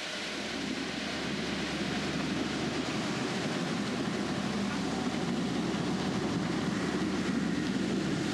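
Steady mechanical drone of a mechanized ruby mine's slurry pumps, which suck flooded earth up through pipelines, with a low hum underneath; it grows a little louder over the first couple of seconds.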